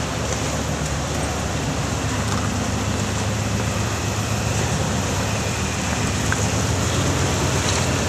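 Flat-fender Jeep rock crawler's engine running steadily at low revs as it crawls over rocks, under a steady rush of noise, a little louder near the end.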